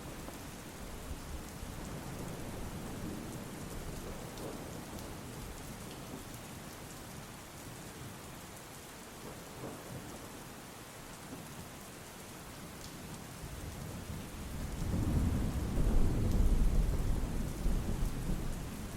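Steady rain falling, with a low rumble of thunder that swells about two-thirds of the way through and is loudest near the end.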